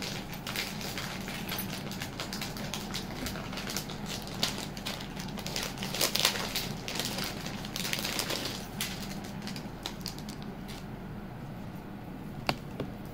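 Handling noise from jewellery pieces being moved and set out: a run of light crackles and clicks that thins out after about ten seconds, with one sharper click near the end.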